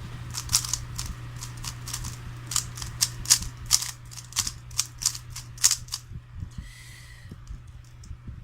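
3x3 Rubik's cube being turned quickly, likely scrambled for the next solve: a fast, irregular run of sharp plastic clicks that stops about six seconds in, leaving only a few faint ticks. A steady low hum runs underneath.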